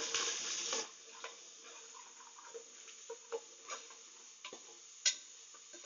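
Onions and ginger-garlic paste sizzling in oil in an aluminium pressure cooker, with a brief loud hiss at the start, then a faint sizzle under irregular clicks and taps of a steel slotted spoon scraping and knocking against the cooker while stirring; one sharper knock about five seconds in.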